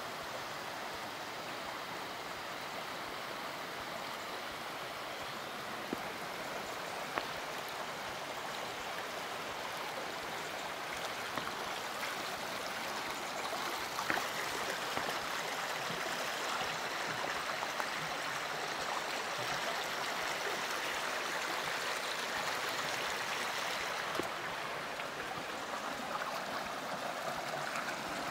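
Mountain stream rushing over rocks: a steady wash of running water that grows a little louder about halfway through, with a few faint clicks.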